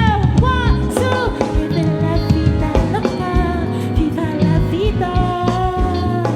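Live band playing a soul and afrobeats song, with drums and bass keeping a steady beat under a woman singing.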